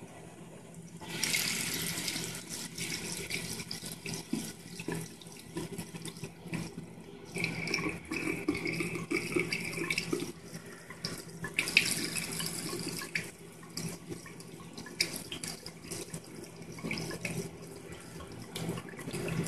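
Thin stream of cold water running from a bathroom sink faucet into the basin and down the drain, chasing sulfuric acid poured into a slow drain.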